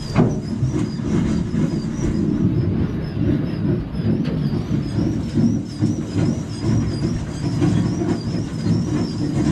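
Steady low rumble aboard an aluminium fishing boat at sea, uneven and churning, the mix of hull, engine and wind noise on deck.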